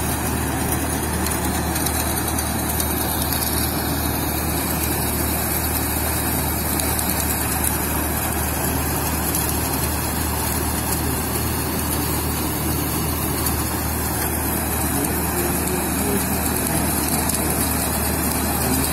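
Tractor-driven multicrop thresher running steadily while threshing: the tractor engine and the spinning threshing drum and blower make one continuous mechanical drone.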